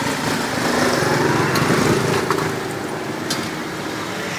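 A small engine running, rising in pitch over the first two seconds and then easing off, with a few light clicks.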